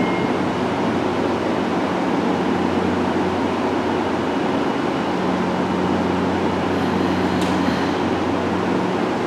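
Tokyo Metro 03 series subway train standing at the platform with its doors shut, its onboard equipment and air conditioning humming steadily. The hum grows a little stronger about five seconds in, and there is a single sharp click about seven and a half seconds in.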